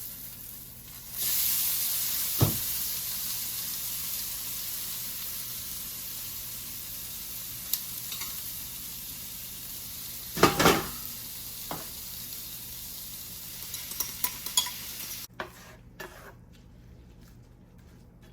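Noodles and scrambled eggs dropped into a hot pan, setting off a loud sizzle about a second in that slowly fades. A utensil knocks and clinks against the pan a few times, loudest near the middle, and the sizzle cuts off suddenly near the end.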